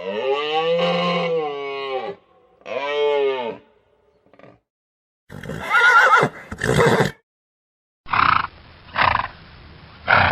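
Horse neighing in several separate calls: a long call of about two seconds, a shorter one, a louder and rougher whinny around halfway through, then three short bursts near the end.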